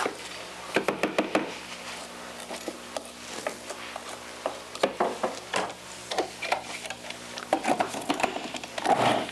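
Spatula scraping and tapping inside a plastic food processor bowl of chopped apples and walnuts, with scattered clicks and knocks as the bowl and lid are handled.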